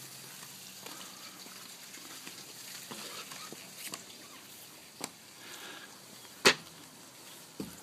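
Footsteps and knocks of a person climbing aboard a pontoon boat on its trailer, over a faint steady hiss; the loudest is a single sharp knock about six and a half seconds in.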